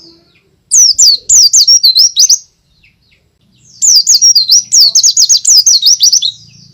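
White-eye (pleci) singing loudly in two fast runs of high, sliding chirping notes: the first begins about a second in and lasts under two seconds, the second starts near the middle and lasts about two and a half seconds.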